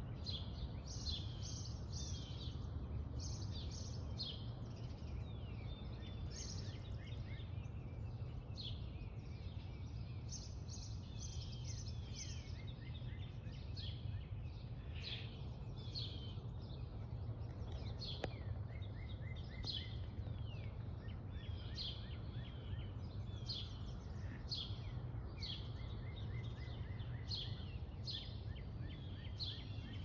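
Several songbirds chirping and singing, short calls coming every second or so and often overlapping, over a steady low rumble.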